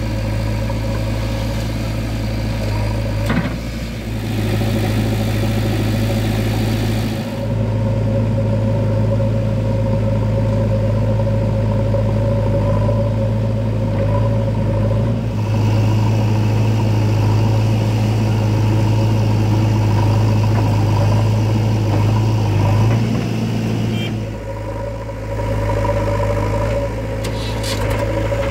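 Diesel engines of a JCB 3DX backhoe loader and a Swaraj tractor running steadily, a low drone whose pitch and level shift a few times as the backhoe digs and loads soil.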